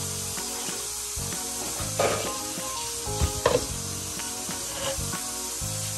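Tap water running into a stainless-steel kitchen sink as a steady hiss, with a few sharp clatters of dishes or utensils about two seconds in and again a second or so later, over soft background music.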